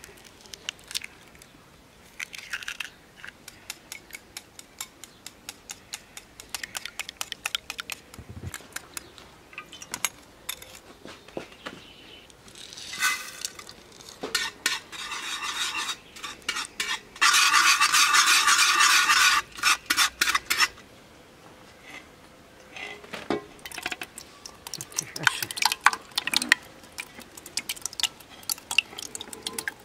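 Wire whisk clicking and rattling against a metal bowl as eggs and rice are beaten together, with a loud spell of fast, continuous whisking for about three seconds past the middle. Near the end, metal bowls knock and scrape as the thick mixture is tipped from one bowl into another.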